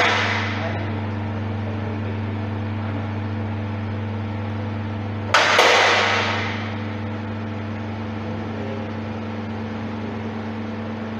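Electric hydraulic pump of a scissor car lift humming steadily as it raises a car. About five seconds in comes a single sharp clank that fades over about a second.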